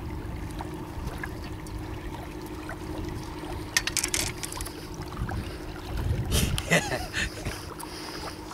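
Wind rumbling on the camera microphone under a faint steady hum, with a few brief rustles and clicks about four seconds in and again around six to seven seconds.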